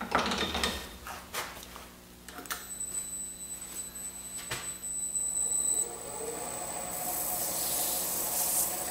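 Robust Scout wood lathe switched on after a few clicks of handling and controls, its variable-speed motor drive running with a steady high whine as the spindle spins the wooden outboard handwheel. Near the end a hissing rub as a hand is held against the spinning handwheel.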